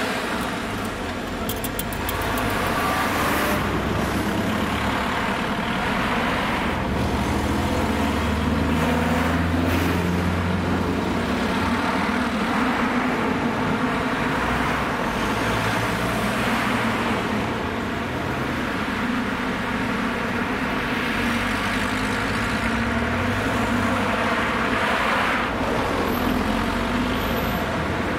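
A steady stream of cars and a van driving past close by, engine and tyre noise swelling and fading with each vehicle.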